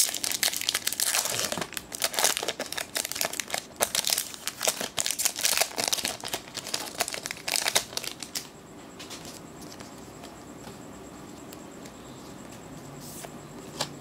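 A Magic: The Gathering booster pack's foil wrapper being torn open and crinkled in the hands, a run of crackling rustles that stops about eight seconds in.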